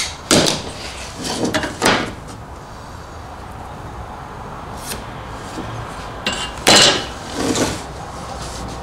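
A pine board, a steel square and a pencil being handled on a wooden workbench: a series of short scrapes and knocks as the square is set down, lines are drawn and the board is shifted along the bench.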